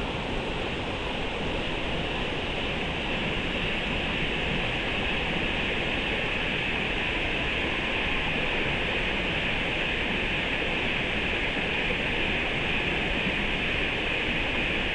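Steady rushing of creek water, an even hiss with no distinct events. The high part of the hiss grows slightly louder a few seconds in.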